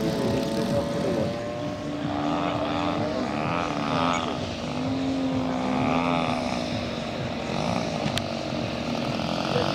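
Propeller engines of large-scale radio-controlled model aircraft running steadily as a model Piper Pawnee makes a low pass. Its note sweeps and shifts slightly as it goes by.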